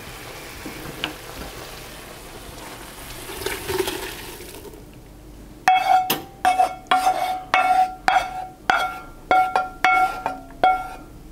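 Onions in red wine pouring from a frying pan into a pot, a steady wash of liquid. About halfway through, a wooden spoon starts scraping and knocking the last of it out of the tilted metal pan, about two knocks a second, each leaving a short ringing note from the pan.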